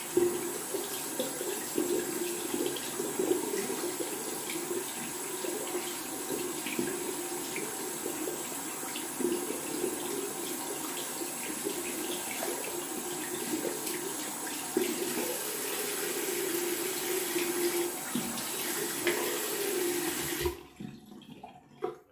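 Tap running into a bathroom sink, with small splashes as water is scooped onto the face to rinse it after a shave; the water cuts off suddenly about twenty seconds in.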